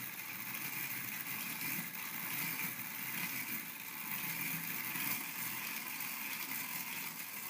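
Striking train of an antique clock movement running under a hand pull on its cord: gears and the governor paddle wheel whirring steadily. It runs slowly because the cord is hard to pull.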